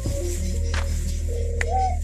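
Background music: a wavering melody with vibrato over steady bass notes, with a few percussion hits.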